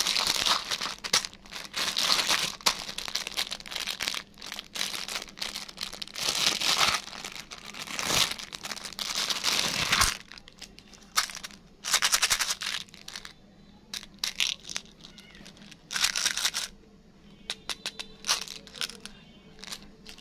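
Plastic candy wrappers crinkling and rustling as they are handled, almost continuous for the first half, then in shorter separate bursts with brief pauses between.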